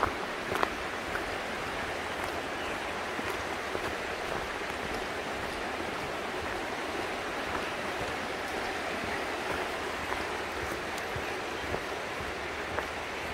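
River rapids rushing in a steady, even wash beside the trail, with a few faint light clicks over it.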